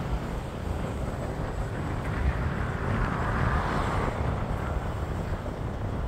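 Car driving slowly along a street: steady road and engine noise with a deep rumble, swelling into a louder rush for a couple of seconds around the middle.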